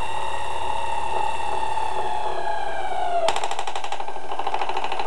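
Miniature Little Giant power hammer: a steady high-pitched whine that sags slightly in pitch, then, about three seconds in, a rapid rattle of blows at around a dozen a second.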